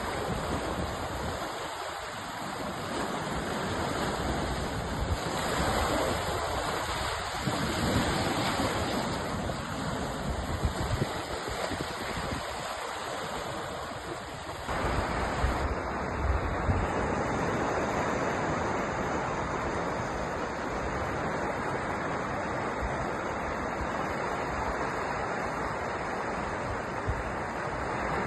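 Sea waves washing and surging, rising and falling in slow swells. About halfway through, the sound changes abruptly, as if cut to another stretch of surf.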